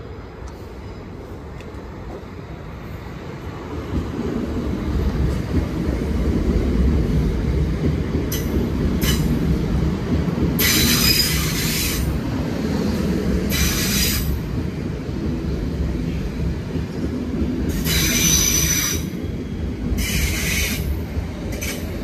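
South Western Railway electric multiple unit running through the station at speed without stopping: a low rumble of wheels on rail that swells about four seconds in and holds as the carriages pass. Several brief high-pitched wheel screeches come in the second half.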